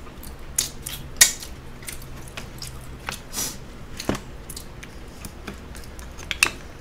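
Metal spoon clinking and scraping against a rice bowl and a plastic food container, a series of sharp irregular clicks, with close-miked eating sounds.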